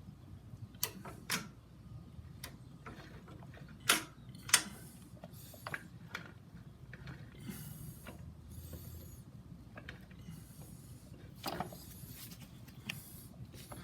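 Scattered metallic clicks and knocks, with faint scraping in between, as parts and tools are handled on a Harley-Davidson primary drive. The sharpest knocks come twice about four seconds in, and again near the end.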